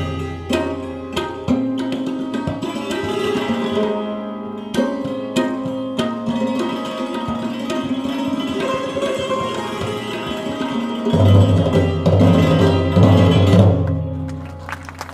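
Instrumental background music with percussion and pitched melody notes; a heavier low part comes in about eleven seconds in.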